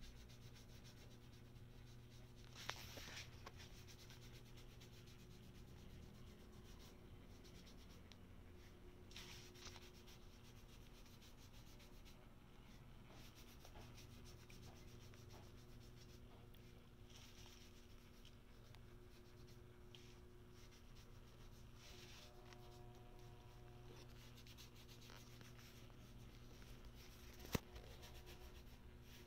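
Desktop laminator running faintly: a steady low hum from its rollers as a sheet feeds through, with light rubbing of the paper. There is a click about three seconds in and a sharper one near the end.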